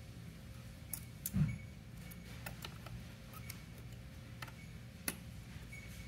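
Scattered small clicks and taps of a knob encoder and small parts being handled and fitted into a patient monitor's opened front panel, with a soft bump about a second and a half in and a sharper click near the end, over a low steady hum.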